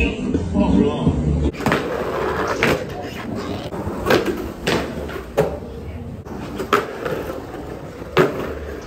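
Music that cuts off suddenly about a second and a half in, then skateboard wheels rolling on concrete with a string of sharp clacks and knocks from the board's tricks and landings.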